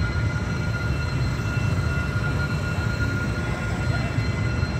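Steady low rumble of engines and motorbike traffic at a closed railway level crossing, with a continuous high-pitched tone running through it.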